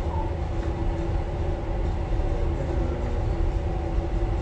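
2006 Chevrolet Impala engine idling steadily, a low rumble with a faint steady hum, while its freshly replaced power steering system is being bled and the fluid warms up.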